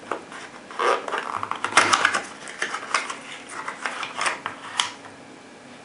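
A cardboard shotshell box and its plastic insert being handled as a 20-gauge shotshell is pulled out: an irregular run of small clicks, taps and rustles that stops about five seconds in.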